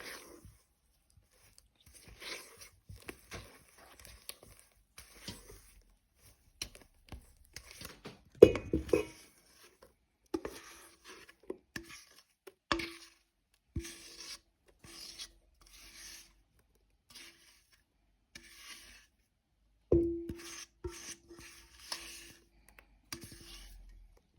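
A kitchen utensil scraping and rubbing around a mixing bowl while a cream mixture is mixed, with several sharp knocks against the bowl, most of them leaving a short ringing note.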